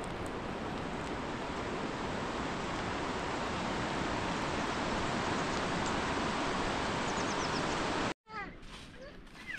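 Steady rush of a swollen, muddy river running through a rocky gorge, with a few faint bird chirps over it. It cuts off abruptly about eight seconds in, and a cat begins to meow near the end.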